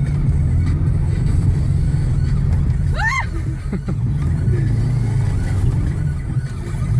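Car engine running steadily at low revs, a constant drone without a big rev. About three seconds in, a short rising-and-falling whoop is heard over it.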